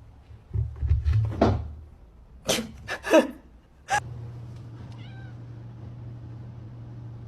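A cat meowing a few short times, after some dull low thumps. A steady low hum follows.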